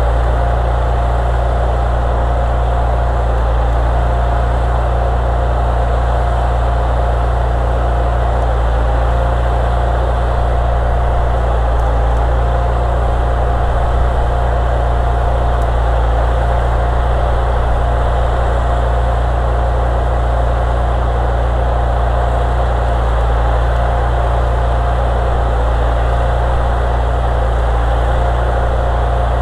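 An engine running steadily at idle, a constant low drone with a steady mid-pitched tone over it that does not change.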